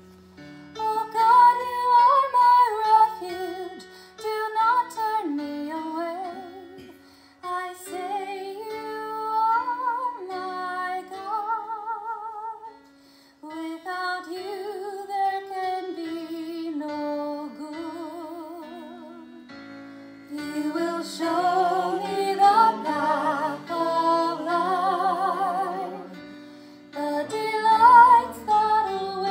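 A woman singing a slow liturgical song with vibrato on held notes, over sustained instrumental accompaniment.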